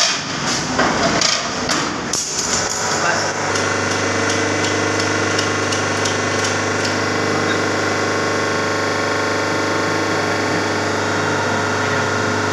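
Automatic wire ring bending machine clattering with irregular metallic clicks and knocks for about the first three seconds. After that it settles into a steady electrical hum with a low drone.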